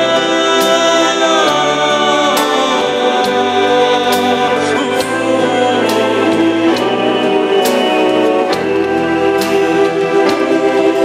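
A song with choir-like sung vocals over instruments: a sung note held for about the first second and a half, then the melody moves on over a slow, steady beat.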